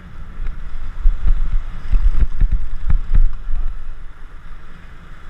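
Low rumbling thumps and knocks on the GoPro's microphone, from wind and handling as the rod is held against a fish, heaviest in the first three and a half seconds, over waves washing up the beach.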